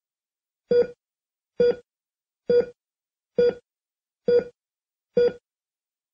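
Six short electronic beeps, evenly spaced a little under a second apart, each the same pitch.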